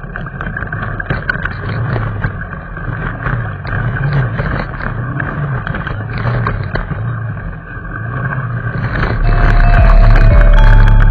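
Small motorcycle engine running under way, its revs rising and falling again and again as it is ridden over a rough trail. Near the end, loud music with a heavy bass comes in over it.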